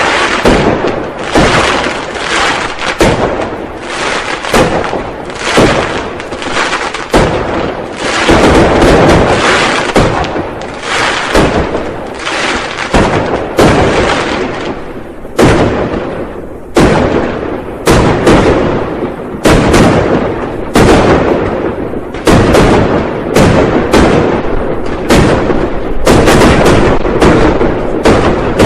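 New Year firecrackers and fireworks going off in a continuous barrage of sharp bangs, several a second and often overlapping, with a brief lull about two-thirds of the way through.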